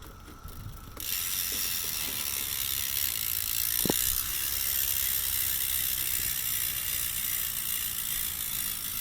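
BMX rear cassette hub freewheeling as the back wheel spins, its pawls clicking so fast they merge into a really loud, steady buzz that starts about a second in.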